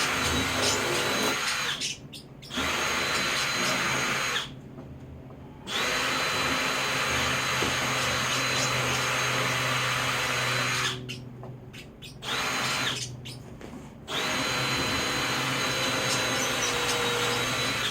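Power drill pre-drilling holes in wood. It runs in several long runs with brief stops between them.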